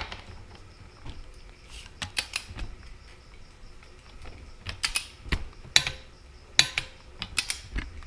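A torque wrench tightening the rear axle nut of an electric bike: scattered metallic ratchet clicks, a few at a time, with a pause in the middle.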